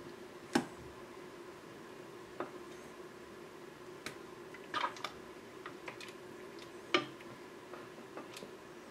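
Cornstarch-thickened pineapple sauce simmering gently in a roasting pan, with scattered sharp pops and clicks over a low steady hum. Near the end a slotted spatula goes into the sauce, ticking against the pan.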